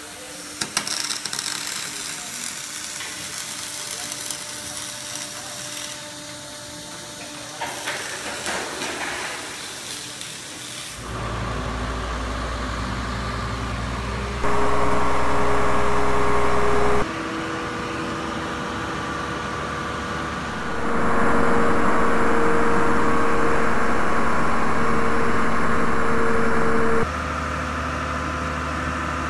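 Crackling hiss of arc welding on aluminium for about the first ten seconds. Then a boat travel lift's engine runs steadily, louder with a steady whine in two stretches of a few seconds each.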